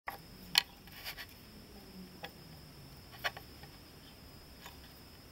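A few light, sharp clicks and taps of small metal gun parts and a glue tube being handled against a wooden board, the loudest about half a second in, over a faint steady high hiss.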